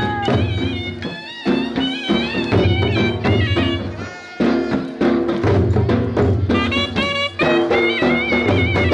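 Sharnai (Gujarati shehnai, a double-reed oboe) playing a wavering, ornamented melody over dhol drumming: live folk music for Charani ramat dancing.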